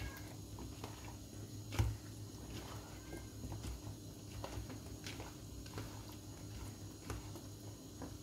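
Hands mixing boiled chicken gizzards in a wet marinade in a plastic bowl, with soft clicks and one sharper knock a little under two seconds in, over a low steady hum.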